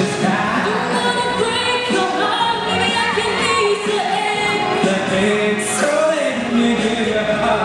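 A young woman and a young man singing a pop song duet into handheld microphones, taking turns on the lines.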